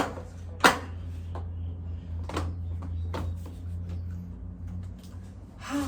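A few sharp clicks and knocks from a baby stroller being handled and adjusted, the loudest a little under a second in, over a steady low hum.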